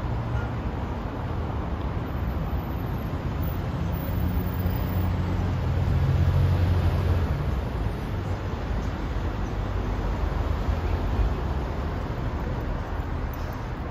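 Steady road traffic noise from a busy multi-lane road, a continuous hum of many cars. A deeper rumble swells about four seconds in and fades by about eight seconds.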